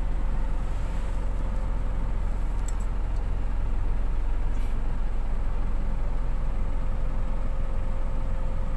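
Truck engine idling, heard from inside the cab: a steady low rumble with a faint steady hum.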